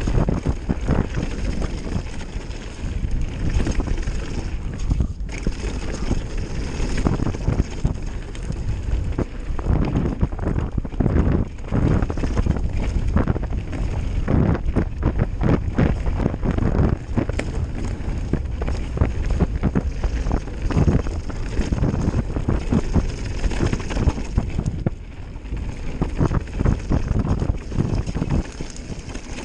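Wind buffeting the microphone over the running noise of a mountain bike descending a dirt trail: tyres on dirt and a dense, irregular rattle and knocking as the bike goes over bumps. It quietens somewhat near the end.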